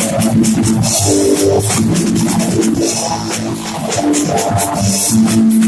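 Drum kit being played, with cymbal hits throughout, along with rock music that carries sustained guitar and bass notes.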